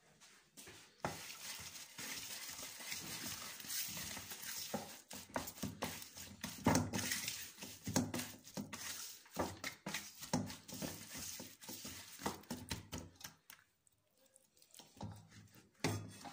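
Fingers mixing a wet chermoula of chopped herbs, garlic, spices and a little water in a stainless steel bowl: irregular squishing and scraping with light clicks against the metal, pausing briefly near the end.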